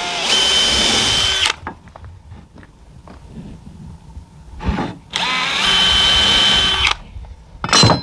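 Cordless drill running into ash boards twice, each run about two seconds long, its motor whine rising in pitch as it spins up and then holding steady. A short knock near the end.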